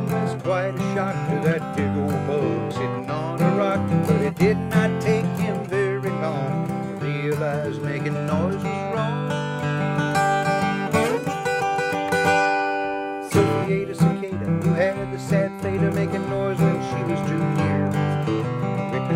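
Instrumental break of a country-style song: strummed acoustic guitar with a wavering lead melody over it. About eleven seconds in the melody slides up into a long held note, and the bass briefly drops out just after.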